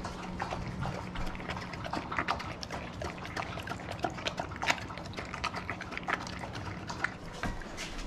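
Rottweiler lapping a dog smoothie from a stainless steel bowl: a quick, irregular run of wet licks and slurps.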